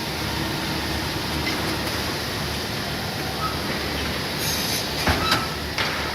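High-speed wood cross-cut saw running steadily with workshop machine noise. A brief high-pitched burst comes about four seconds in, then a few sharp knocks near the end.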